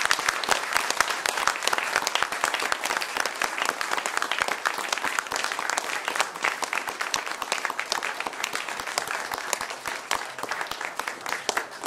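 Audience applauding, the clapping thinning out and growing quieter near the end.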